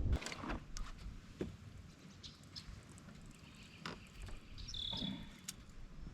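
Faint outdoor quiet broken by scattered light clicks and knocks, with a short high chirp about five seconds in.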